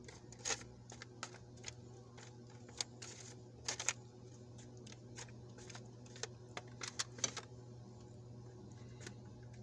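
A spoon clicking and scraping irregularly against a bowl while stirring a thick mash of sardines and seasonings, over a steady low hum.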